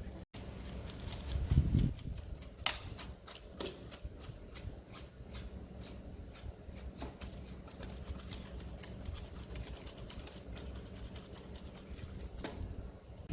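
Hands handling and cleaning the plastic casing of a Shaiko WS-930P cassette boombox: irregular scraping and small clicks, with a heavier low thump about two seconds in.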